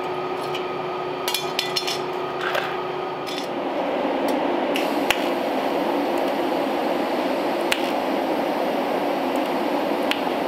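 A few light metallic taps and clinks, then from about three and a half seconds in a steady electric welding arc on the roadster's sheet-steel cowl, a continuous noise that runs on without a break.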